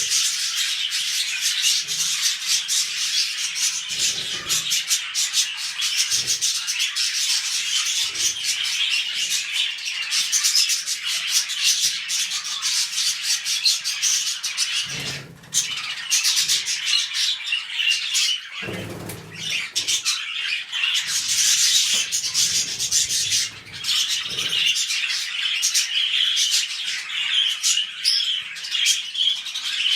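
Budgerigars chattering and warbling without a break, a dense run of quick chirps and clicks, with a couple of dull low bumps around the middle.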